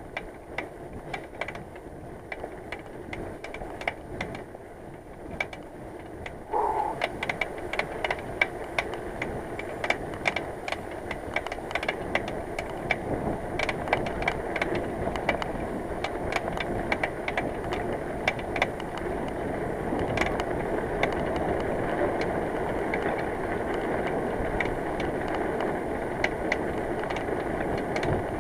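A bicycle on the move: wind and road noise with irregular clicking and rattling, louder from about six and a half seconds in.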